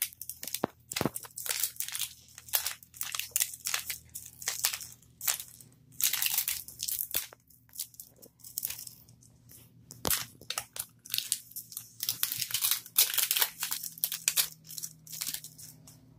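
Plastic wrapping on a Mini Brands capsule ball being peeled and torn off by hand: a quick, irregular run of crinkling and tearing, with a couple of short pauses.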